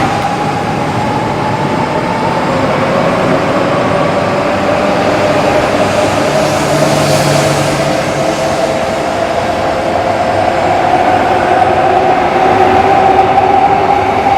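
E1-series Max Shinkansen train pulling out and accelerating past. Its traction-motor whine rises slowly in pitch over running and rail noise, growing louder toward the end.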